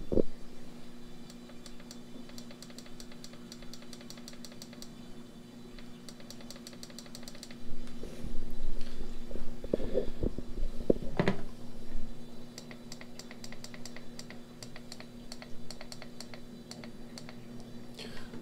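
Runs of rapid light clicking, with a few louder knocks from handling about halfway through, over the steady hum of running aquarium pumps.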